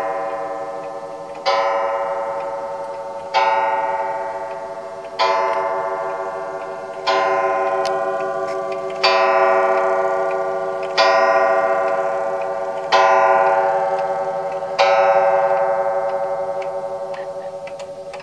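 Franz Hermle & Sons two-train wall clock striking the hour on its coiled gong: eight slow single strokes about two seconds apart, each ringing on and fading before the next. After the last stroke the gong dies away and faint ticking is heard.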